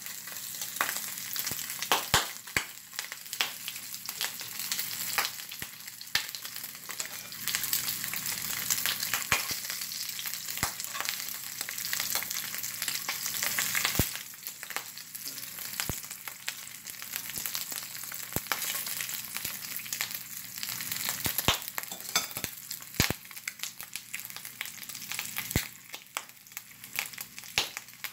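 Pork belly pieces searing in hot oil in a cast-iron skillet: a steady sizzle with frequent sharp pops and crackles.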